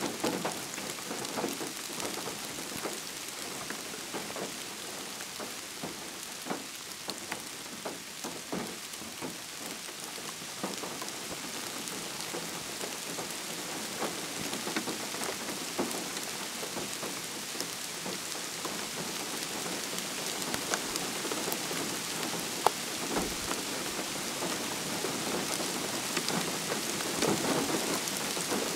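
Steady rain falling in a live oak forest: an even hiss with many individual drops ticking, growing a little heavier toward the end.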